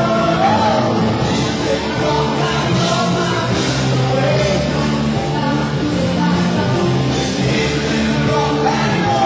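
Live rock band playing a Christian rock song, with a singer over the band, loud and steady throughout.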